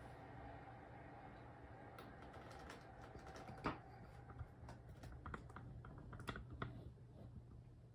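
Faint, irregular small clicks and taps over a low steady hum, with one sharper tap about three and a half seconds in.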